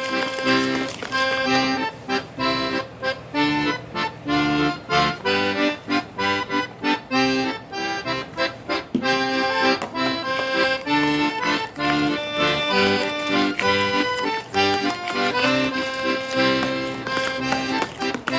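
Background music led by an accordion, a lively tune with quick, rhythmic notes.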